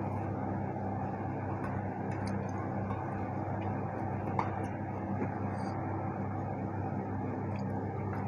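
Steady mechanical hum of kitchen machinery, even in level throughout, with a few light clicks of a spoon on a plate, the sharpest about four seconds in.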